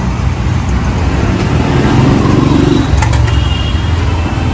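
Road traffic running past, one vehicle swelling louder about two seconds in, over the sizzle of a vada deep-frying in a kadhai of hot oil. A couple of sharp clicks about three seconds in, then a brief high tone.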